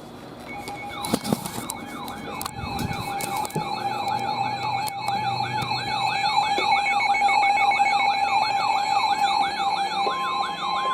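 A weather alert radio sounds its electronic siren alarm: a rapid up-and-down wail about three times a second over a steady tone. About ten seconds in, a steady single-pitch tone joins it, which matches the 1050 Hz NOAA Weather Radio warning alarm that comes just before a warning is read out.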